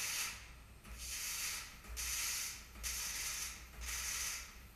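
MIG welder laying a row of short tack or stitch welds on a steel beam: five short bursts of hissing arc noise, about one a second, over a low steady hum.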